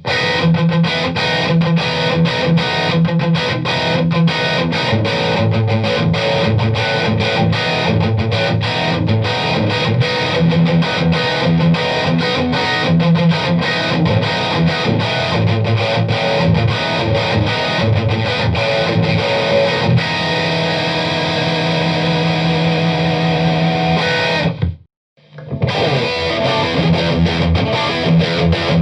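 Distorted electric guitar played through a Limetone Audio Focus NX compressor pedal: a fast picked riff. Near the end a held note rings for a few seconds, then the playing breaks off for a moment and starts again.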